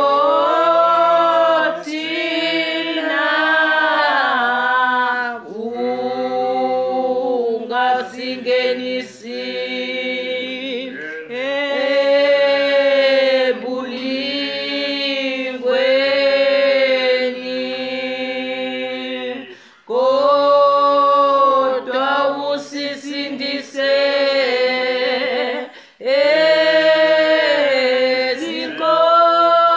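A congregation singing a hymn unaccompanied, many voices together in long held phrases with short breaks between them.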